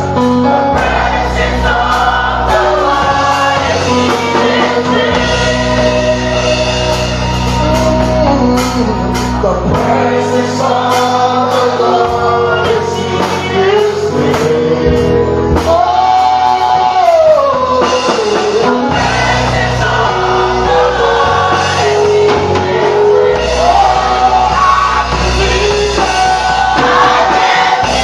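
Gospel worship music: a choir and a lead singer singing over a band with bass and drums.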